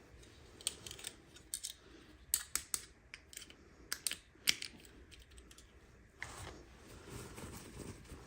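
Irregular sharp clicks and taps of small plastic pieces and packaging being handled, bunched in the first half, followed by softer rustling.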